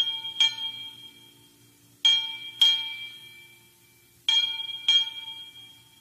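Background music of struck bell-like tones: three pairs of strikes, the two in each pair about half a second apart, each note ringing and slowly fading.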